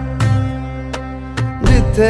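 Background music: an instrumental stretch of a song, with a held, wavering melody line over percussion hits.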